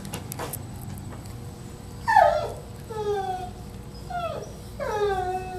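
Small dog whining: about four high whines starting about two seconds in, each falling in pitch, the last one drawn out longer.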